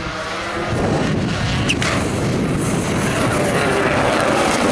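Škoda Fabia rally car's engine running hard as the car comes past, getting louder about a second in.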